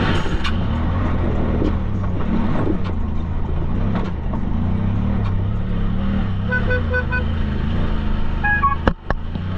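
An off-road vehicle's engine running steadily, with four short beeps about six and a half seconds in and a couple of sharp clicks near the end.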